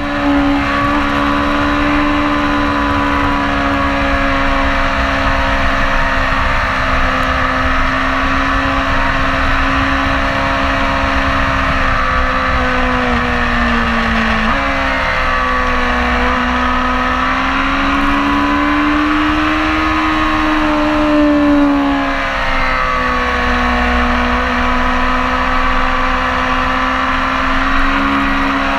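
BMW S1000RR's inline-four engine running hard under riding at track speed, its pitch rising and falling smoothly as the throttle is worked through the corners, with a sudden step in pitch about halfway through, over a steady low rush of wind.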